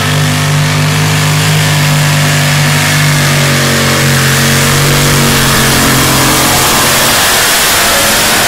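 Modified pulling tractor with four supercharged Hemi V8 engines, all at full throttle under load as it pulls the sled. The engines are held at high, steady revs, and the note sags slightly and roughens near the end.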